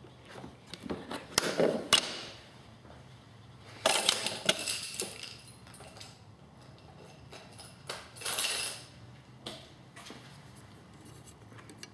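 Clattering and rustling of small hard parts and wires being handled, in several short bursts with a sharper click in between.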